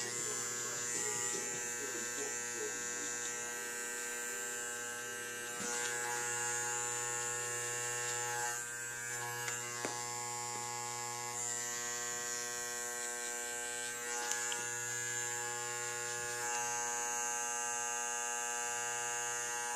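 Andis Master magnetic-motor hair clippers running with a steady electric buzz, blade lever set about halfway shut, as they are worked against the hair at the nape to blend a taper.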